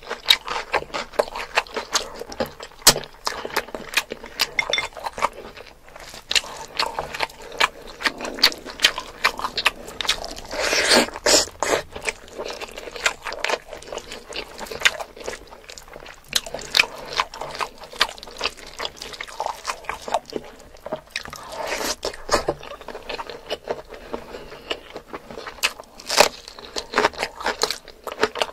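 Close-miked eating of spicy mutton curry with rice: chewing and biting with many sharp, wet mouth clicks throughout. Louder, longer stretches of chewing noise come about ten seconds in and again around twenty-two seconds in.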